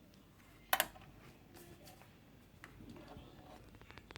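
A sharp double click about three-quarters of a second in, then faint scattered ticks.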